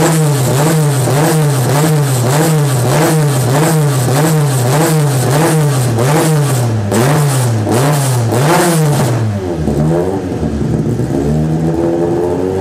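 Toyota AE86's 4A-GE four-cylinder engine revved in quick, even blips, its pitch rising and falling about one and a half to two times a second. In the last few seconds the revs drop lower and waver.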